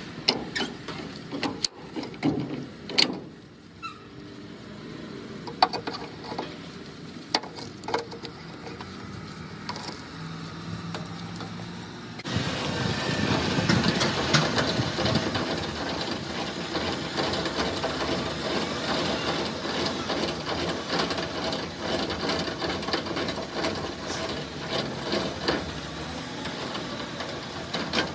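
Scattered clicks and knocks as a tractor-trailer's air-line glad hands and electrical cord are unhooked. About twelve seconds in, a steady gear rattle starts as the semi-trailer's landing gear is cranked down by hand.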